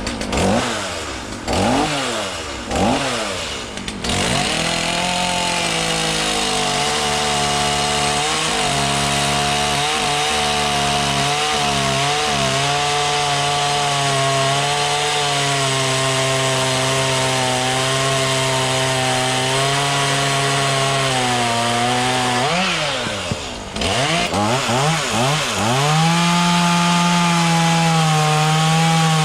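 Chainsaw blipped up and down three times, then held at high revs, cutting into a wood log, with small dips in pitch as the chain bites. About 23 seconds in it drops off, revs up and down again, and settles back into a steady high-speed cut.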